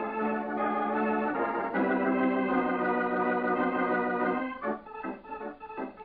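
Organ music bridge: sustained organ chords that shift several times, then end about four and a half seconds in, marking a scene change in the radio drama.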